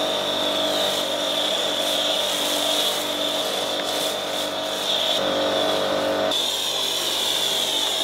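Pressure washer running with a foam cannon, spraying snow foam onto a car: a steady hiss of spray over the pump motor's hum. The hum changes abruptly about six seconds in.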